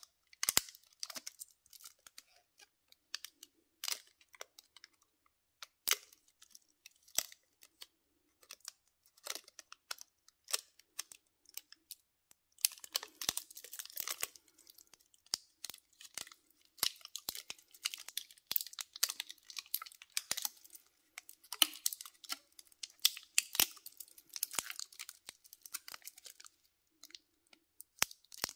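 Thin clear protective plastic film on a steel watch crinkling and crackling as fingers work it off the case. Sharp clicks come at scattered moments, and the crinkling turns busy and near-continuous from about halfway through.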